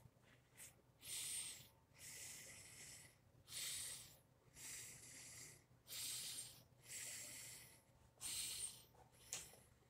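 A person breathing close to the microphone: soft, hissy breaths in and out at an even pace, about one a second.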